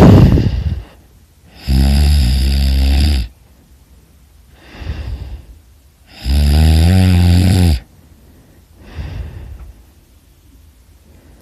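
A person snoring loudly: two long, rasping snores on the breath in, each about a second and a half, roughly four and a half seconds apart, with softer breaths out between them. A loud noisy burst opens the stretch.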